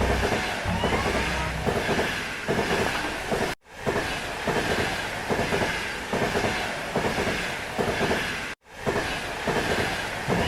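Train running, its wheels clicking and clacking over the rail joints. The sound breaks off for an instant twice.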